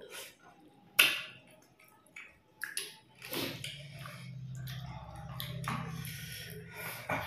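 Eating by hand at close range: wet mouth smacks and sharp clicks of chewing and fish bone being worked apart, the loudest about a second in, with a low steady hum through the middle few seconds.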